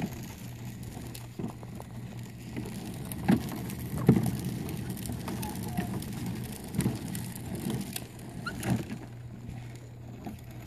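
Hard plastic wheels of a Little Tikes Cozy Coupe ride-on toy car rolling over a concrete sidewalk: a steady rumble with several sharp knocks along the way.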